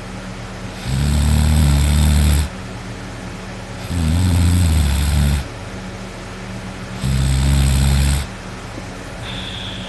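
A person snoring heavily while passed out drunk: three loud, deep, rattling snores, each about a second and a half long, coming about every three seconds.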